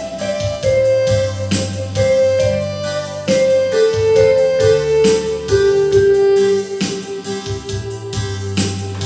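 Electronic home keyboard playing a melody in held notes that step downward, over a bass line and a steady accompaniment beat.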